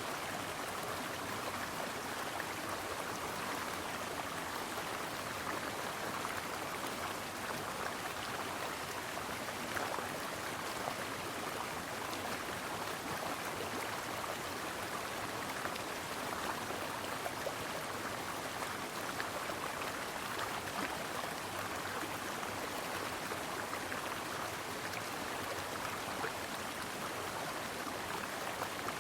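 Stream water flowing steadily, an even rush of running water.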